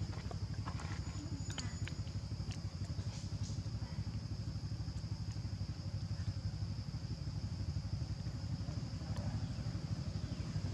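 A steady low rumble like a small motor running, with a steady high-pitched hum above it and a few faint clicks in the first few seconds.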